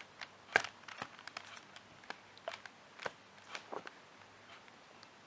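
Plastic 4x4 Rubik's cube being turned and handled: about eight faint, uneven clicks and clacks of the layers over the first four seconds, then they die away.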